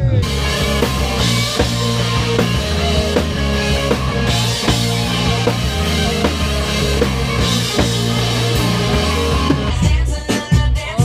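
Rock band music with a drum kit.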